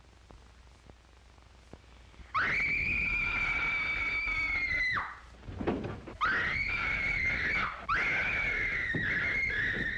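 A young girl screaming: three long, high, held screams, the first starting a little over two seconds in, the last two close together.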